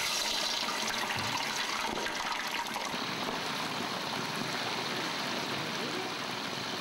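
Water boiling in a pot, bubbling steadily, with crow meat cooking in it.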